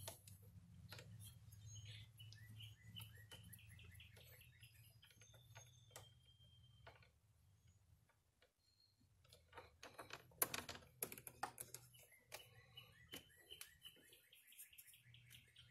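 Near silence: scattered light clicks of a 10 mm wrench working the positive terminal bolt off a lawn tractor battery, with a small cluster of louder clicks a little past the middle, and faint bird chirps in two stretches.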